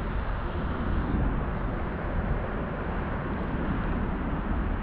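Wind buffeting the camera's microphone: a steady low rumble with a hiss above it.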